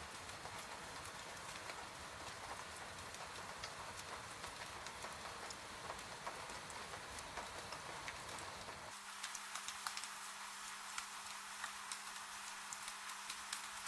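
Rain pattering on a window, a steady hiss full of separate taps of drops hitting the glass. About nine seconds in the sound changes abruptly: the low rumble drops away, a faint steady hum comes in, and single drop ticks stand out more clearly.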